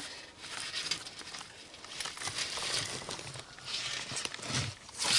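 Rustling and crackling in dry wood shavings and litter, with scattered small clicks.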